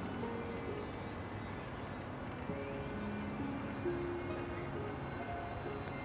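Crickets trilling in a steady, unbroken high-pitched chorus, under soft background music of slow held low notes.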